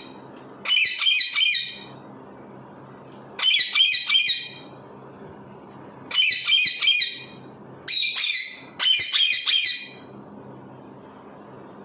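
Parrot squawking in five harsh bursts of about a second each, each burst a rapid run of repeated screechy notes, with short pauses between.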